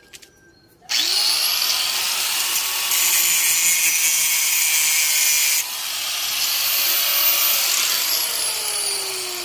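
Angle grinder with a cut-off disc starting up about a second in and cutting metal, a loud steady whine. Near the end the motor winds down, its pitch falling.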